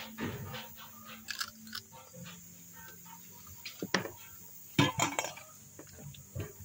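Raccoon chewing and crunching quail eggs, with irregular crackling bites; the loudest crunches come about four and five seconds in.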